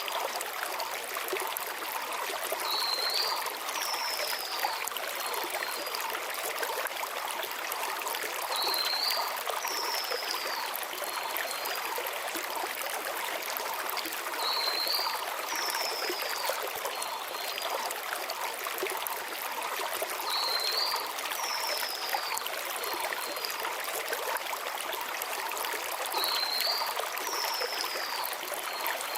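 Shallow mountain stream flowing steadily over river stones. A small forest bird repeats one short, high phrase, a hooked note, then a falling slur and a few faint ticks, about every six seconds, five times.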